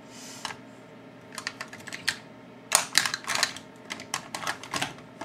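Light, irregular clicks and taps of small makeup items being picked through and handled on a tabletop, coming in quick clusters from about a second and a half in, loudest around three seconds.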